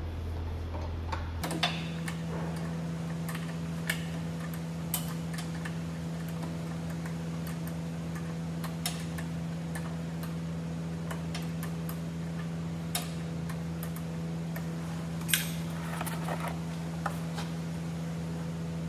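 A steady workshop hum, pitched higher from about a second and a half in, with sparse light clicks and taps of hand tools being worked on metal.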